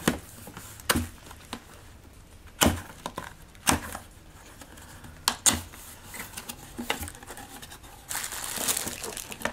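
A cardboard lens box being handled and opened: a string of sharp knocks and taps from the cardboard, then, near the end, plastic wrapping crinkling as the bagged lens comes out of its tray.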